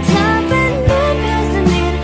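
Thai pop song playing: a gliding melody line over a full band backing with a steady drum beat.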